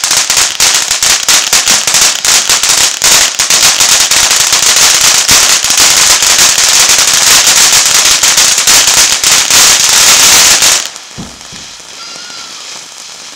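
Ground fountain firework spraying sparks with a dense, rapid crackle. The crackling cuts off suddenly about eleven seconds in, and a much quieter hiss goes on as the fountain keeps burning.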